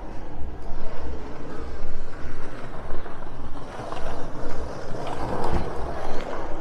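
Street traffic: a vehicle passing, swelling about four to six seconds in, over a steady low rumble.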